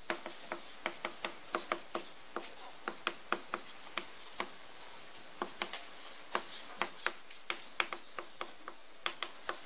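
Chalk tapping on a blackboard while characters are written: an irregular run of short, sharp taps, a few a second, with a brief pause about halfway through.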